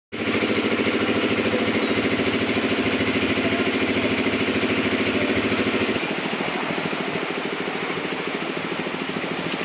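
A small engine running steadily with a fast, even throb, under a steady rushing noise. About six seconds in the sound switches abruptly to a somewhat quieter engine note.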